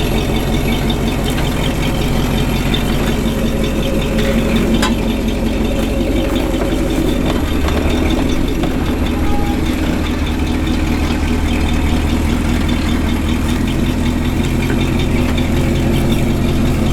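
Jeep CJ5's engine running steadily at idle while the Jeep crawls through a tight trail turn, a continuous low hum that shifts slightly about halfway through.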